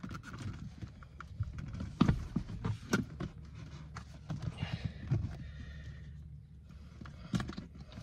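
Irregular clicks and knocks of hard plastic and metal parts as an Audi A8 D4 rear seat is worked loose by hand, with a few sharper knocks and some rustling in between.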